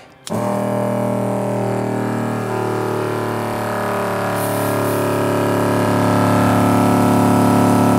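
NorthStar ATV sprayer's 12-volt electric pump switching on a split second in and running with a steady hum that grows slightly louder as it builds pressure to about 40 PSI.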